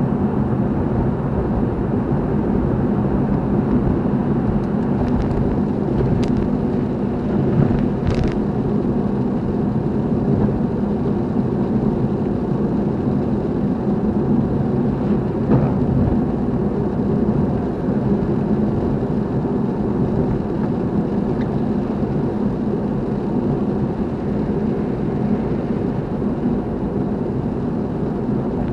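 Steady road noise of a car being driven at an even pace, a low rumble of engine and tyres with no change in speed. A few faint brief ticks come through in the first half.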